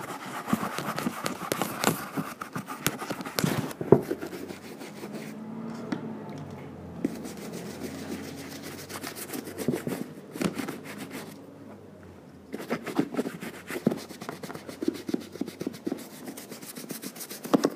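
Wooden-handled bristle brush scrubbing a leather boot with a soapy, foaming cleaner: quick back-and-forth rubbing strokes, easing off briefly twice.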